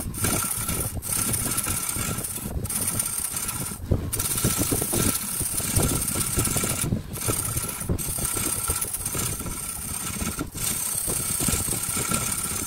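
Wood lathe running with a steady whine while a hand-held turning chisel cuts the spinning wooden blank, a rough scraping of wood being peeled into shavings. The sound breaks off briefly several times.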